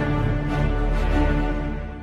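Background music with sustained tones over a steady bass, fading out near the end.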